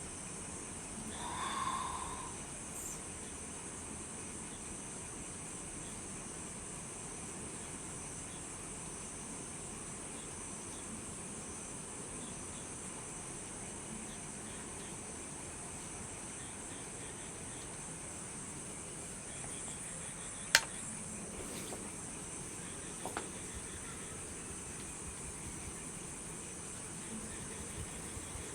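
Night insects chirring steadily in a high, even band, with a short swell of sound near the start. A single sharp click about two-thirds of the way in, the loudest sound, and a fainter click a couple of seconds later.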